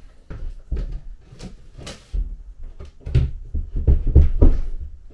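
Footsteps on a plywood floor, then a run of wooden knocks and thuds as a plywood toilet pedestal carrying a PVC drain pipe is set down and the pipe pushed into a hole in the floor. The heaviest thumps come in the second half, as the pipe catches on the edge of the hole.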